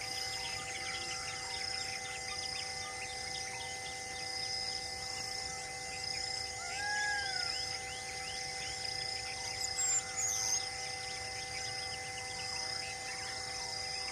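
Forest ambience: insects chirping in a steady, evenly pulsing chorus over a few held droning tones, with birds calling. One clear arched whistle comes about halfway through, and a few short sharp chirps a little later.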